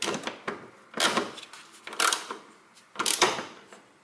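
Ratcheting torque wrench clicking in four short bursts, about one a second, as the rear stabilizer bar bushing bracket bolts are tightened.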